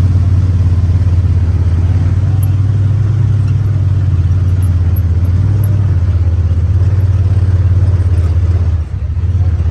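Honda Talon 1000 side-by-side running on the trail, its 999 cc parallel-twin engine making a low, steady rumble that dips briefly near the end.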